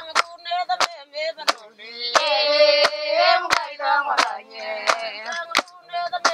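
Women singing together, high-pitched, over steady hand clapping at about three claps every two seconds.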